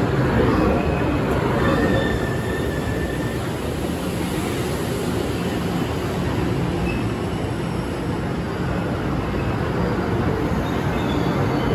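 Taiwan Railway EMU500 electric multiple unit rolling slowly alongside the platform as it pulls into the station, its wheels rumbling on the rails. Brief high brake or wheel squeals come about two seconds in.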